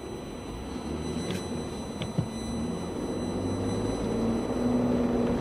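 Vehicle engine hum in slow city traffic, heard from inside a car. It grows louder toward the end, and there is one short knock about two seconds in.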